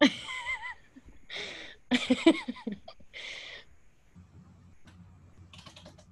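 A few short bursts of laughter and breathy voice sounds heard through a video call, with faint low hum and a single breathy burst near the end.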